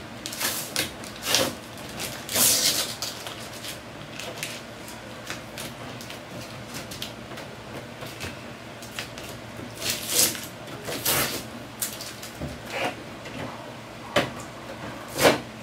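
Plastic clicks, knocks and scraping as a hot-glued plastic exhaust box is worked loose from the rear grille of a portable air conditioner. There is a longer scrape about two seconds in and a cluster of sharper clicks around ten seconds in.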